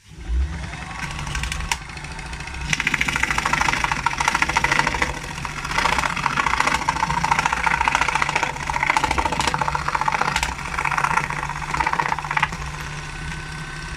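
Sewing-machine motor driving a home-made jigsaw starts up and runs with a steady hum. From about three seconds in to near the end its reciprocating blade saws through thin wood with a rapid rasping, then the motor runs on without cutting, with a thin whine.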